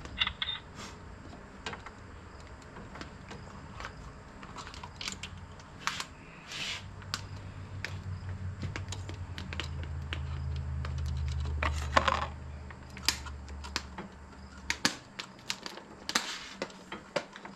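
Scattered light clicks and taps of a borescope and hand tools being handled at an engine. Under them, a low hum swells from about six seconds in and stops abruptly near fifteen seconds.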